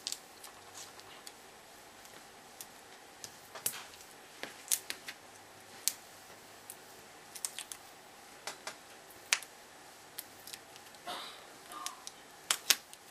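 Hands handling small paper pieces on a cutting mat: scattered light clicks and taps at irregular intervals, a few in quick clusters, over a faint steady hum.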